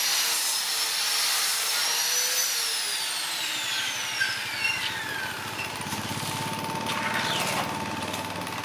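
A woodworking power tool's motor whining at speed, then winding down with falling pitch from about two and a half seconds in. A lower steady hum and a low rumble carry on through the second half.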